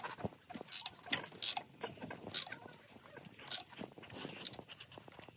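Irregular clicks and squeaks as the Chrysler 3.5 V6 is turned over with its new timing belt fitted, to check the belt's tension.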